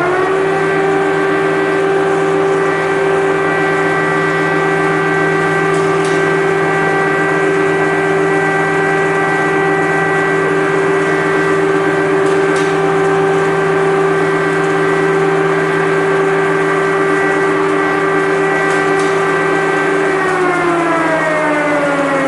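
Air-raid siren sounding an alert, held at one steady pitch, then winding down in a falling wail about twenty seconds in.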